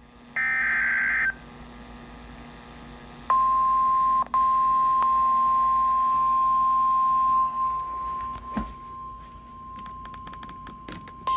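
Emergency alert tones: a short burst of screeching digital header data, then a steady, high, single-pitch NOAA Weather Radio warning alarm tone. The tone is loud for about four seconds, then drops lower and carries on under scattered clicks, with another short data burst near the end.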